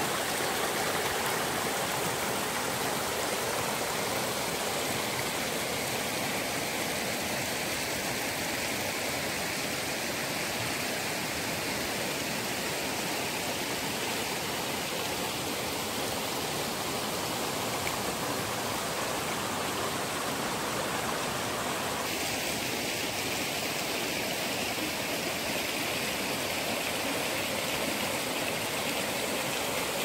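Shallow forest stream running over rocks and stones, a steady rushing and rippling of water. The tone shifts slightly about two-thirds of the way in.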